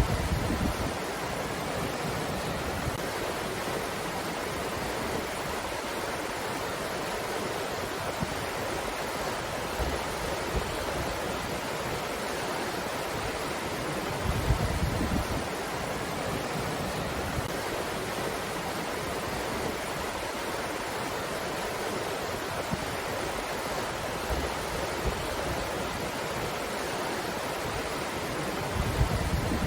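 Steady breeze, an even rushing noise. Brief low rumbles of wind buffeting the microphone come at the start, about halfway through and near the end.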